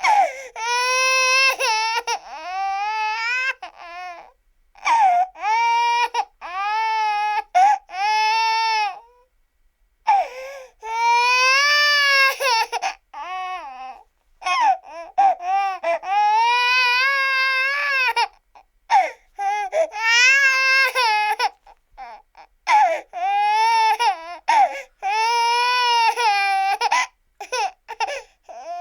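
Baby crying: a long run of high-pitched wails, each about one to two seconds long, broken by short catches of breath and a few brief pauses.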